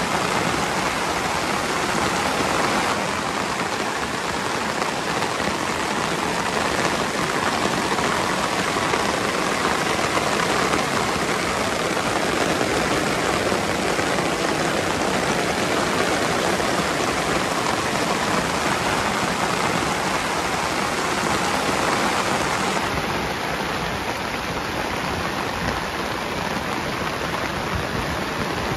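Heavy rain falling steadily, heard from under a camp tarp, with rain pattering on the tarp and the surrounding grass.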